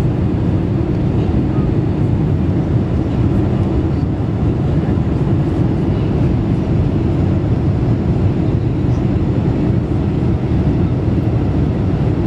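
Steady cabin noise inside a Boeing 747-400 on approach with flaps extended: a loud, even rumble of engines and rushing air.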